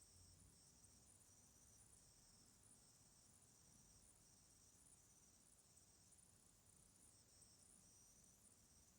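Near silence: faint room tone with a faint, high-pitched chirping that pulses on and off about once or twice a second.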